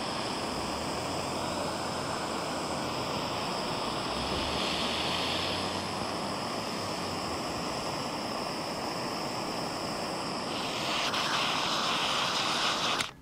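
Gas burner flame running with a steady hiss. It swells twice, then cuts off abruptly near the end as the burner is shut off.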